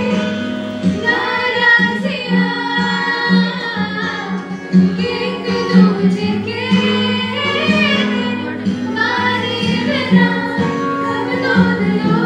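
Women's voices singing a song over steady backing music.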